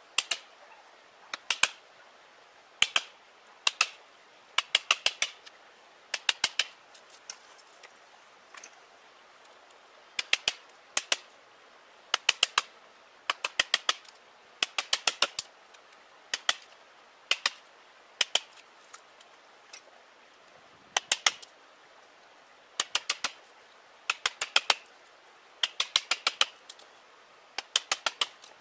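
Wooden mallet striking a chisel as it cuts into the trunk of a standing tree, in quick runs of two to five sharp taps with short pauses between.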